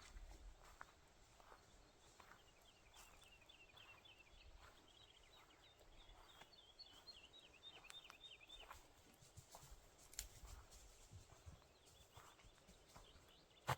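Faint songbird singing a long run of quick, high repeated notes for about six seconds, with soft footsteps on the forest floor.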